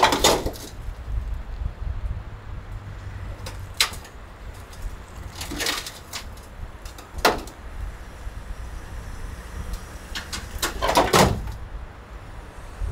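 About five separate knocks or thumps, spread a few seconds apart, over a low steady rumble.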